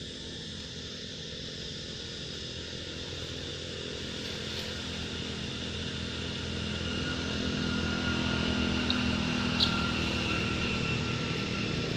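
A motor vehicle engine running steadily and growing gradually louder, as if coming closer, with two small clicks about nine and a half seconds in.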